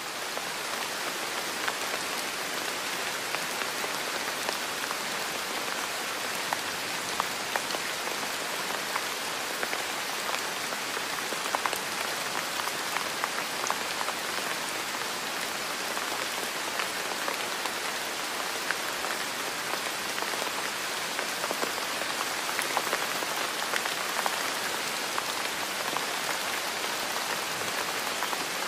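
Steady rain falling: an even hiss with scattered soft droplet ticks.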